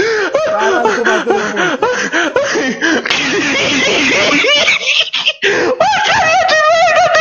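A man laughing hard in a quick run of short bursts. In the middle comes a harsh noisy stretch, and near the end a wavering, shaking laugh.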